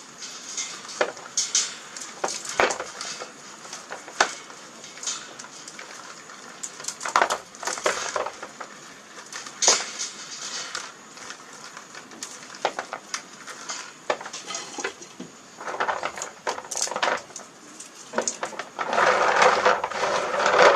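Majo palm fruits being pulled off their stalk by hand and dropping into a container: irregular clicks, taps and rustling, with a longer, denser rattle near the end.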